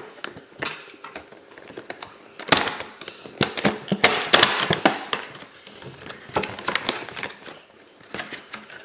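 Packaging being handled and opened by hand: irregular rustling and crinkling with sharp clicks and knocks as a small speaker is taken out of its box.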